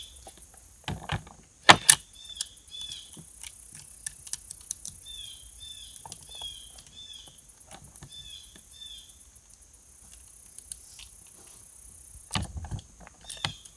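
Small birds chirping over and over, with a faint high insect trill behind them. Scattered clicks and one sharp clack about two seconds in come from the chainsaw's bar and chain being handled and fitted.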